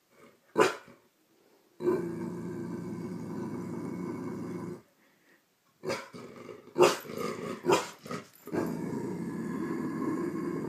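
Yellow Labrador retriever growling at its own reflection in a mirror: two long growls of about three seconds each, with a few short, louder barks before and between them.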